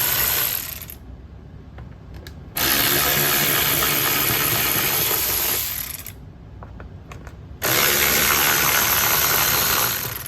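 Cordless electric ratchet with a T25 Torx bit spinning in reverse in steady runs of about three seconds each, backing out the air filter housing screws. One run ends about half a second in, and two more follow with short pauses and a few light clicks between them.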